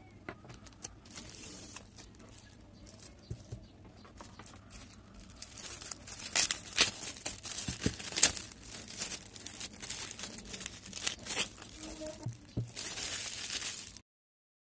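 Clear plastic wrapping crinkling and tearing as it is peeled off a canvas board: faint clicks at first, then quick crackles that grow louder about six seconds in, ending in a steadier rustle that cuts off suddenly.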